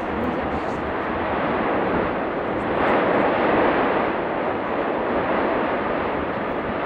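Cumbre Vieja volcano erupting: a steady roar from the lava fountain, swelling louder about three seconds in.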